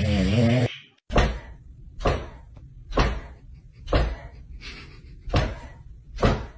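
A cow snores briefly, then a golden retriever lying on a wooden floor thumps its wagging tail against the boards: six dull thumps about a second apart.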